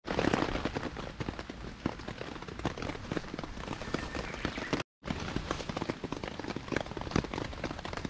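Steady rain falling on a camp tarp overhead: a dense, irregular patter of many small drop impacts over a soft hiss. It cuts out for an instant about five seconds in, then resumes the same.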